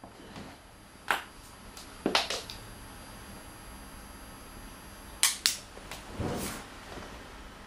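A handful of sharp clicks and knocks: one about a second in, a quick run of three around two seconds, a pair a little after five seconds, then a softer, longer rustle about six seconds in.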